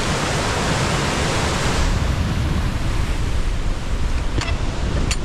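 Rain-swollen beck pouring down a waterfall, a loud steady rush of water. About two seconds in it cuts to wind buffeting the microphone, a low gusty rumble, with a few sharp clicks near the end.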